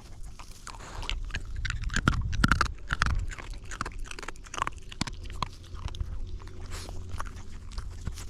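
A young dog chewing its food close up, its teeth crunching and crackling in irregular bites, loudest a couple of seconds in.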